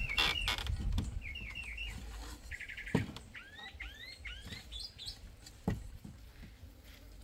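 Bird chirping: a quick run of short falling chirps, a brief trill, then a string of rising whistled notes that climb higher in pitch. Two dull knocks, about three seconds in and near six seconds.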